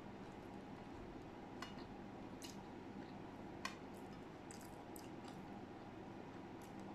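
Faint steady room hum with a few soft clicks and squishes of rice being mixed by hand on a plate.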